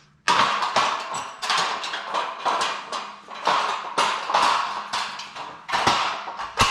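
Metal scaffolding parts clanking and knocking together as they are handled and fitted: a quick, irregular run of sharp, ringing knocks.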